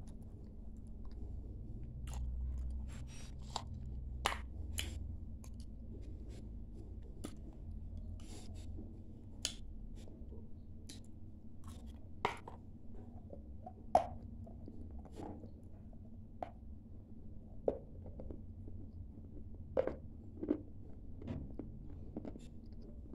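Dry edible clay being crunched and chewed in the mouth: irregular sharp crunches, a few of them louder than the rest.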